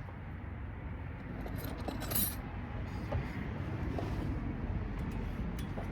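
Light clinks and knocks of metal parts being handled, with one brief louder rattle about two seconds in, over a steady low rumble.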